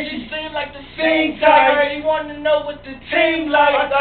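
A man singing into a handheld microphone, in held, bending notes broken into short phrases.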